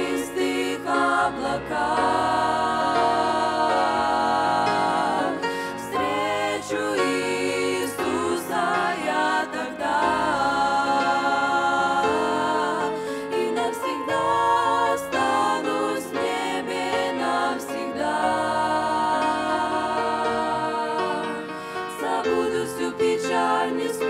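Young women's vocal group singing a Christian hymn in parts into microphones.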